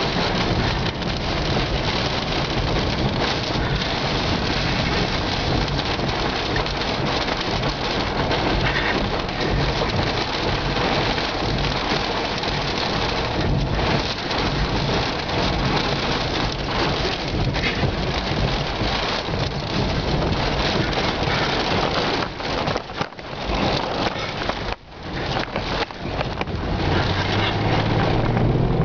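Heavy rain and storm wind pelting the car, heard from inside the cabin as a loud, dense rush, with brief dips about two-thirds of the way through.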